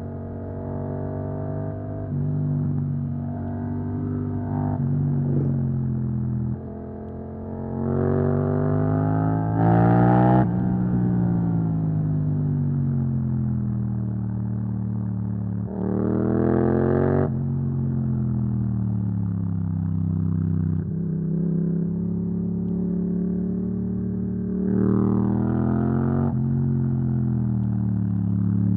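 Yamaha MT-07's parallel-twin engine through an Akrapovic exhaust, ridden at speed. It opens up three times, the pitch climbing and then falling as the throttle is rolled off, between stretches of steady cruising.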